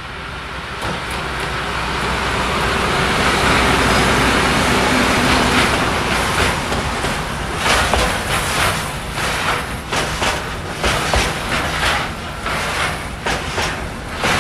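Train 15D-114 running into the station. It grows steadily louder over the first few seconds, then from about halfway its wheels clatter in a quick, uneven rhythm over rail joints and points.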